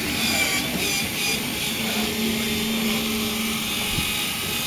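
Radio-controlled Tatra 813 8x8 scale model truck running steadily as it crawls over rocks, a continuous motor and drivetrain noise.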